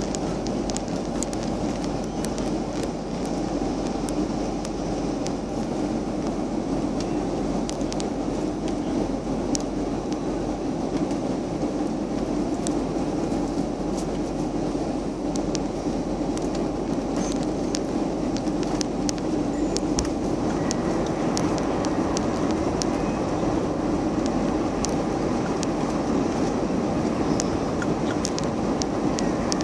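Steady cabin noise inside a jet airliner in flight: a constant rumble of engines and airflow, with scattered faint ticks.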